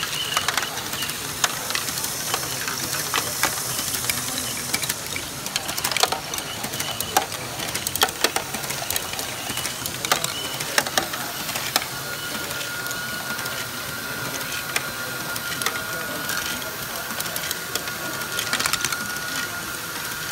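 Motorised Lego Great Ball Contraption modules running: plastic gears and mechanisms whirring and clattering, with many small clicks of plastic balls being lifted and dropped. A steady high whine comes in about halfway through.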